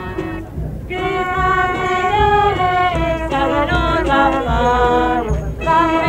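Southern Italian carnival folk music: voices singing a tune over a small street band. The phrases break off briefly about half a second in and again about five seconds in.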